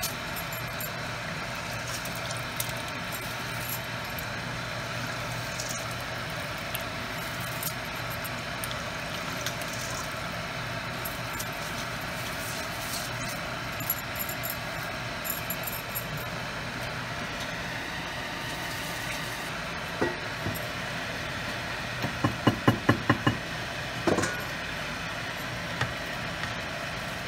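Steady kitchen hum, with a quick run of about eight sharp metallic clinks against the cooking pot a little after twenty seconds in and another about two seconds later, as rice and then chicken curry are layered in for biryani.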